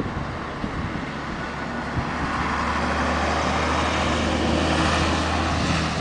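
A vehicle engine running with a steady low hum over a rushing noise, growing louder from about two seconds in.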